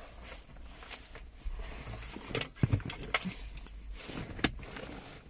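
Hands handling a USB cable and plastic interior trim: rustling with scattered sharp clicks and taps, the loudest click about four and a half seconds in.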